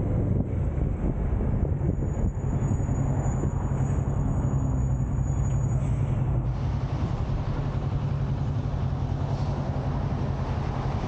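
Kawasaki Z650's parallel-twin engine running steadily while riding, with rushing wind noise on the microphone.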